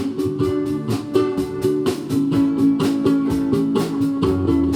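Ukuleles strumming chords in a steady, even rhythm at the start of a song. Lower notes join in near the end.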